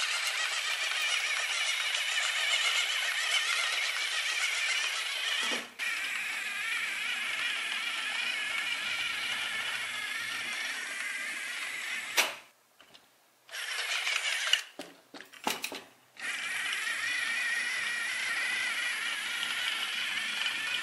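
Plastic building-block gears clattering and whirring as the toy vehicle's wheels turn the gear train and spin its propellers. The whirr stops twice briefly, about twelve and fifteen seconds in.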